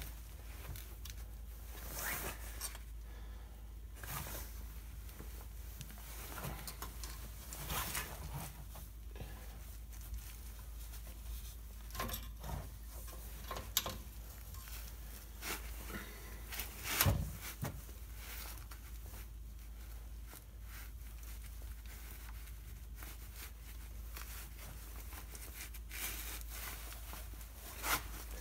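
Seal puller scraping and clicking against the front differential pinion seal of a Dana 30 axle as it is worked in to pry the seal out, with a sharp knock about seventeen seconds in, over a steady low hum.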